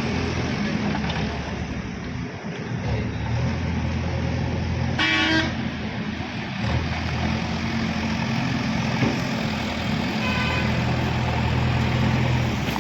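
JCB backhoe loader's diesel engine running steadily while it works, easing off briefly and then picking up again. A short pitched toot sounds about five seconds in, with a fainter one near ten seconds.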